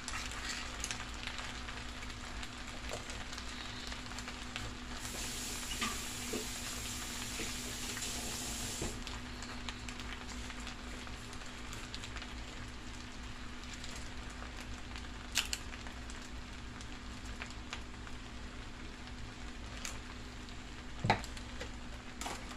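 Skillet of sausage and shrimp pasta in tomato sauce sizzling steadily over an electric coil burner, with scattered crackles. The hiss rises for a few seconds about five seconds in, and there are a couple of sharper clicks, the loudest about 21 seconds in.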